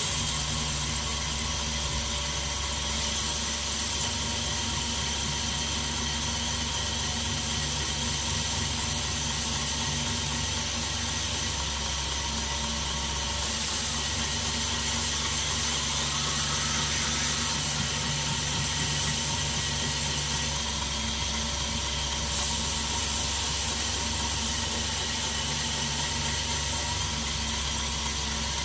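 A 2x72 belt grinder running steadily, its motor humming and the abrasive belt hissing over the wheels.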